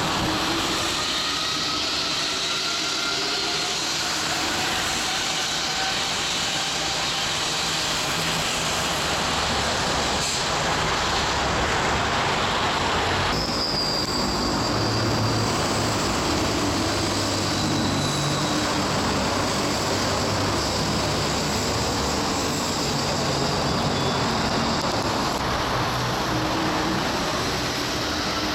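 Santiago Metro Line 2 rubber-tyred train running, a loud steady rumble with a faint whine that slides in pitch. About halfway in, a high squeal starts and holds, falling slightly.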